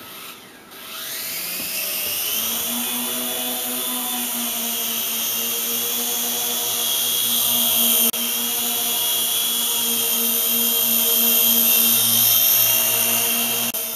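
Electric motors and propellers of a YD-718 toy RC helicopter spinning up about a second in, then running steadily with a high whine.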